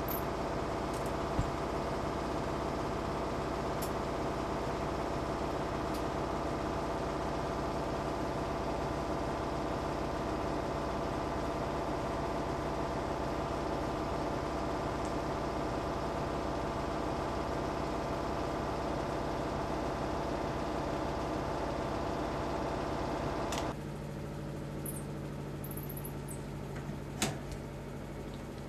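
Steady mechanical hum with several fixed tones, like a fan or appliance running. It drops and changes abruptly about 24 seconds in. A few faint clicks and some very short, very high squeaks follow near the end.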